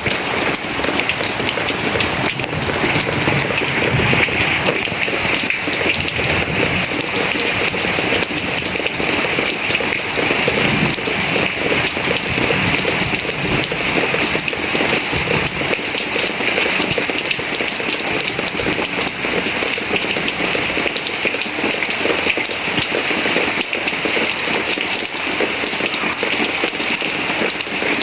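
Moderate rain falling steadily, a dense even patter of drops on a surface.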